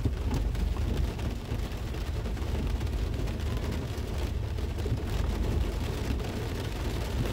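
Steady rain on a car's roof and windshield heard from inside the cabin, over a continuous low rumble.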